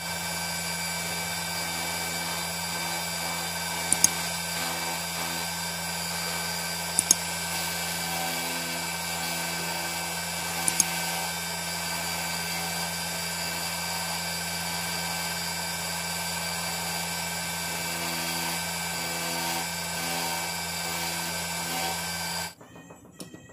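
Electric motor with a sanding drum on its shaft running with a steady whine while a shoe part is sanded against the drum, with three brief sharp ticks along the way. The sound cuts off suddenly near the end.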